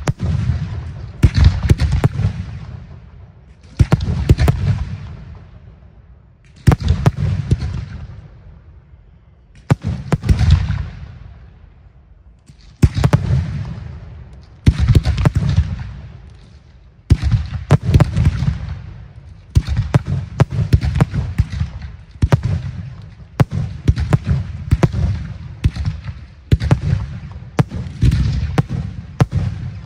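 Aerial firework shells bursting one after another. Each is a sharp bang followed by a rumble and a scatter of smaller pops that dies away. The bursts come every two to three seconds at first, then about one a second in the last dozen seconds.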